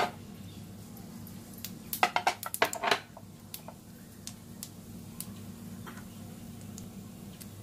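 Mustard seeds popping in hot oil in a nonstick frying pan as they start to splutter. Scattered sharp pops come through, with a quick cluster of louder ones about two to three seconds in, over a steady low hum.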